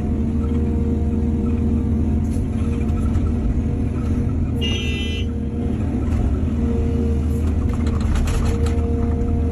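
Excavator's diesel engine running steadily with a deep drone and a humming tone. A brief high-pitched squeal comes about five seconds in, and a run of knocks and rattles comes near the end.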